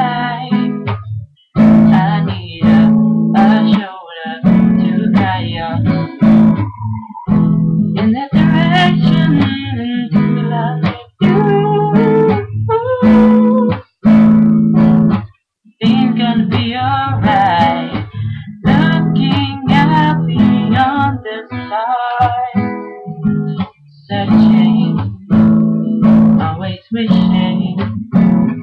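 Acoustic guitar strummed in chords, played in phrases with a few brief stops between them.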